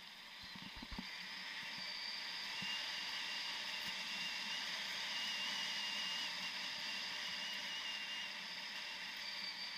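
Skis sliding over packed snow on a downhill run: a steady hiss that grows louder about a second in, with a few soft knocks near the start.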